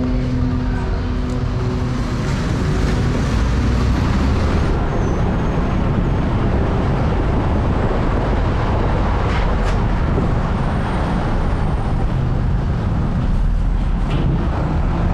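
Steady noise of vehicle traffic or a vehicle in motion, dense and even, with no single event standing out.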